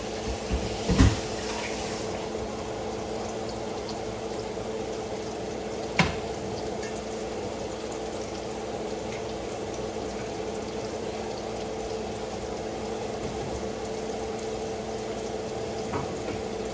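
Steady hiss with a low electrical hum, the kind of background noise a kitchen makes during cooking. It is broken by a short clatter about a second in and one sharp knock about six seconds in.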